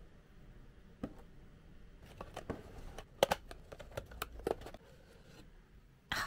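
Pyramid-shaped paperboard box being set down and opened by hand: a tap about a second in, then a run of paper crinkles, clicks and rustles as the ribbon handle is slipped free and the folded flaps are pulled apart, with a short louder rustle near the end.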